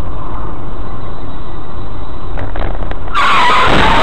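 Steady road and engine noise of a moving car. About three seconds in, a louder, harsher stretch starts, carrying a steady high squeal typical of tyres skidding.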